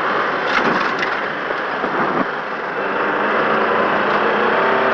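Inside an Opel Kadett GT/E rally car at speed on a snowy stage road: a steady rush of tyre and road noise with the four-cylinder engine working hard, its note rising from about three seconds in as the car accelerates.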